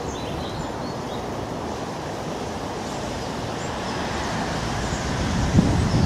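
Steady outdoor background rumble with a few faint, high bird calls, and gusts of wind on the microphone near the end.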